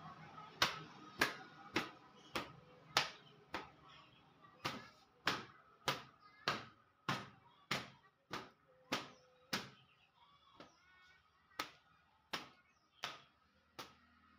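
A dusting cloth slapped repeatedly against an electric bicycle to beat the dust off it: sharp slaps about every 0.6 seconds, about twenty in all, weaker and more spaced in the last few seconds.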